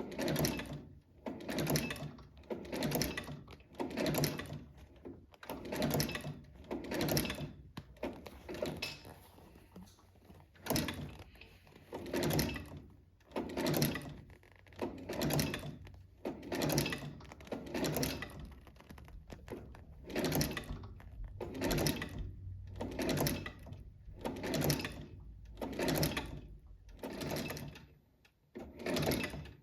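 Rhythmic scraping strokes, about one a second, each rising and fading.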